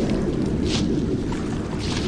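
Footsteps crunching on the forest floor at a walking pace, two steps about a second apart, over a steady low rumble.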